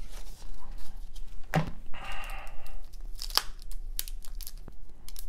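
A 1993 Topps baseball card pack's wrapper being torn open and crinkled by hand: a run of irregular crackles and short rips, with one sharp snap about a second and a half in.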